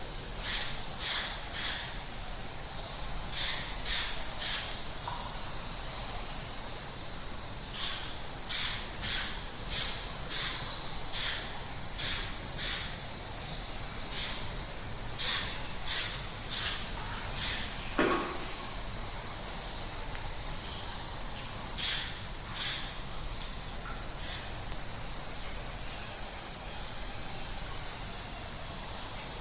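Bats in a cave squeaking: many short, high chirps, some single and some in quick clusters, at irregular intervals over a steady high hiss. A single lower, brief sound comes about two-thirds of the way through.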